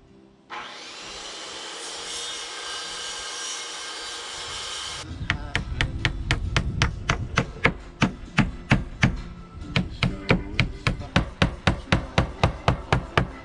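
A few seconds of steady hissing noise that stops abruptly, then rapid, evenly spaced hammer strikes on wood, about three a second, as boards and tar paper are fastened to the wall.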